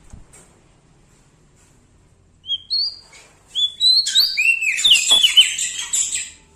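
Prenjak daun singing: after a quiet start, a few short rising whistled notes, then a quick run of varied chirps and slurred notes lasting about two seconds that stops near the end.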